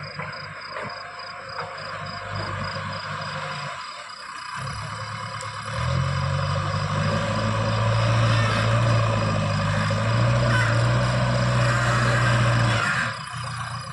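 JCB 3DX backhoe loader's diesel engine running. It gets louder and holds a steady higher note from about six seconds in, then drops back near the end.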